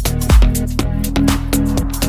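Background electronic dance music with a steady beat; the heavy kick drum drops out about half a second in, leaving the bass line and hi-hats running.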